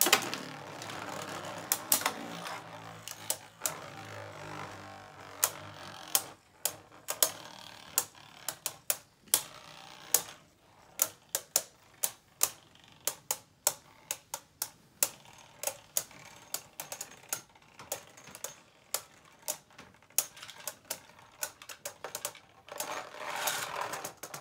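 Two Beyblade spinning tops going round in a plastic stadium: a steady whir at first, then a long run of sharp, irregular clacks, one to three a second, as the tops knock into each other and the stadium wall.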